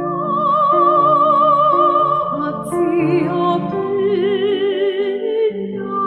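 A song playing: a singing voice holding long notes with a wide vibrato over a sustained instrumental accompaniment.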